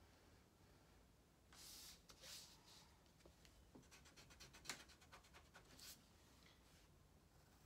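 Faint scratching of a pencil drawing on construction paper: a couple of longer strokes about two seconds in, then a quick run of short back-and-forth strokes.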